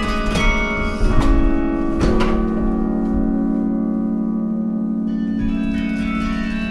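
Carillon bells playing a slow piece: several notes struck in the first two seconds, then a low chord left ringing through the middle, and more notes coming in near the end.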